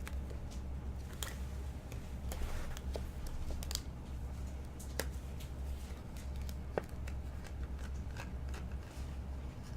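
Cardboard trading cards being handled and slid one behind another, with light clicks and rustles scattered through, over a steady low hum.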